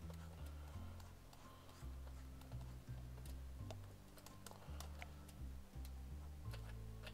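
Quiet background music with a bassline that steps from note to note, over scattered irregular clicks of a computer keyboard and mouse.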